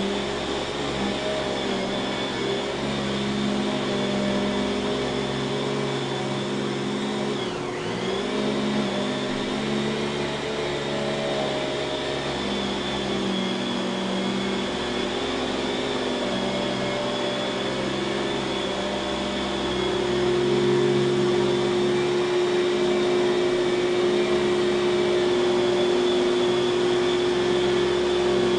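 Kenmore canister vacuum cleaner's dual-stage Lamb motor running steadily with a high whine. About eight seconds in the pitch dips briefly and recovers; about two-thirds of the way through a lower steady hum joins in and the sound gets slightly louder.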